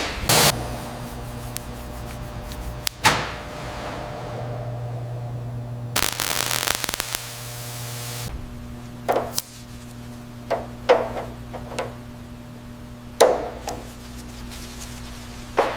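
A steady low hum with scattered short knocks, about eight of them spread unevenly, and a brief rushing hiss about six seconds in.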